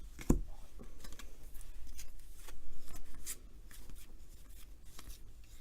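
2019 Topps baseball cards being flipped through and slid against one another by hand: soft papery rubbing with small sharp clicks, the sharpest about a third of a second in, and a busier stretch of handling in the middle.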